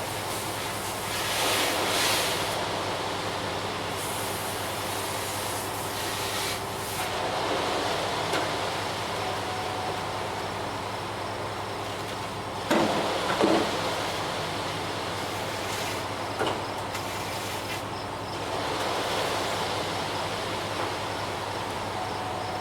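Ready-mix concrete truck running steadily with a low hum, its mixer drum turning, and a brief clatter of knocks about halfway through.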